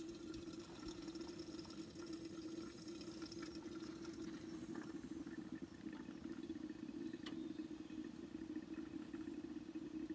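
A faint, steady engine hum, like a truck's diesel idling, with a few light ticks.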